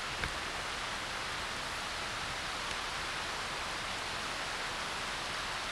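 Steady rushing of a shallow, rocky mountain stream flowing over stones, with a brief faint click near the start.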